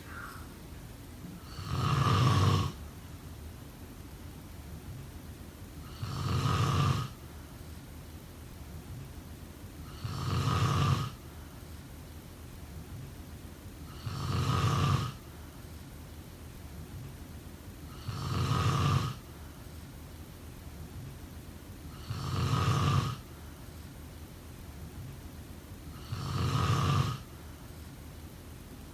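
A person snoring in a slow, even rhythm: seven snores, one about every four seconds, each lasting about a second.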